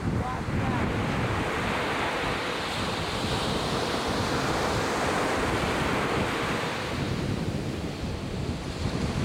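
Ocean surf: a wave breaks and washes in, its rush swelling for a few seconds and fading, over a steady rumble of wind on the microphone.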